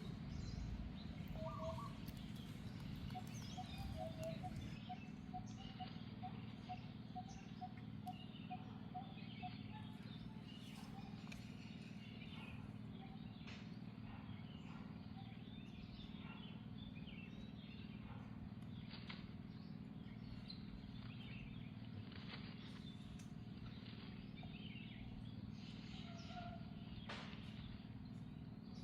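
Outdoor ambience with birds calling over a steady low rumble. A bird repeats a short note about twice a second for the first ten seconds, and small high chirps and a few clicks are scattered throughout.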